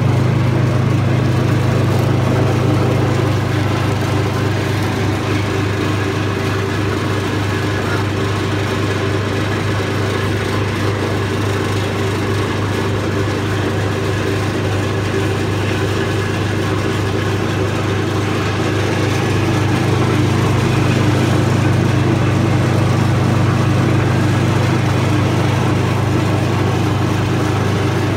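Round stainless-steel vibratory flour sifter running, its motor and shaking sieve giving a steady low hum.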